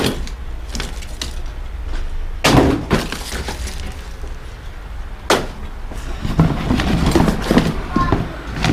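Hands rummaging through a cardboard box of old cables and odds and ends: rustling and clattering, with two sharp knocks about two and a half and five seconds in.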